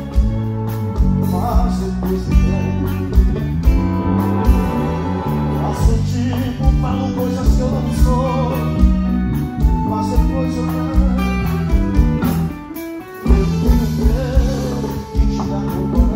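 Live arrochanejo band playing, with a male singer's vocals over bass, drums and guitar. The music drops out briefly about two thirds of the way through, then comes straight back in.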